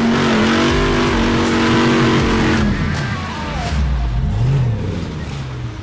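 Jeep JKU's 6.4-litre Hemi V8 revving up and holding high revs for about two and a half seconds, then dropping back and wavering at lower revs as it crawls over rocks.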